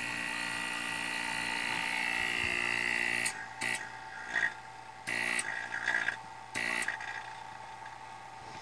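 Vevor 4.5 CFM rotary-vane vacuum pump running with its intake open to free air, a steady motor hum and whine with a lot of suction noise and vibration into the desk. Its sound dips and comes back several times in the second half.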